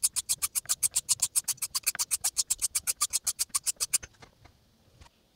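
Straight razor blade, its spine taped, scraped rapidly back and forth on an Atoma 600 diamond sharpening plate, about nine or ten even strokes a second. The spine is riding on the stone to set the bevel. The strokes stop about four seconds in, followed by a couple of faint clicks.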